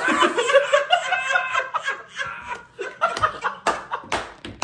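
Aerosol can hissing as it sprays foam, stopping about a second in, while people laugh loudly throughout.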